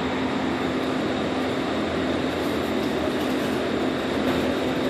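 Steady machinery noise: an even hiss with a constant low hum, unchanging throughout.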